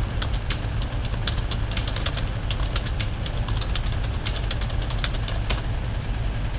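A low, steady rumble with scattered sharp clicks and crackles over it.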